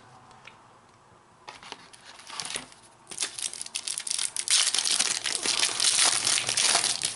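Wrapper of a Topps Match Attax trading-card pack being torn open and crinkled by hand. It starts with a few faint crackles, then turns into loud, continuous crinkling from about three seconds in.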